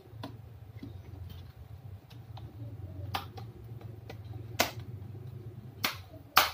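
Scattered sharp clicks and taps from handling laptop parts and tools, with four louder clicks in the second half and the loudest near the end, over a steady low hum.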